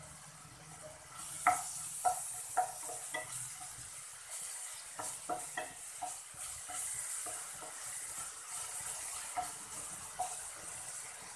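Chopped onions and ginger-garlic paste sizzling in hot oil in a frying pan, stirred with a slotted wooden spatula that knocks against the pan many times. The sizzle sets in about a second in, and the sharpest knock comes soon after.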